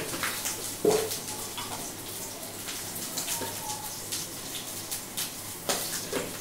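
Kitchen handling noises: a plastic storage jar being opened and spooned from, with a sharp knock about a second in and scattered clicks and taps, over a faint steady hum.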